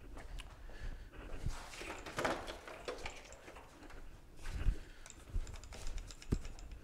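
Footsteps on a concrete shop floor, with scattered knocks and clatter as an angle grinder and its cord are picked up from a toolbox. The grinder is not running.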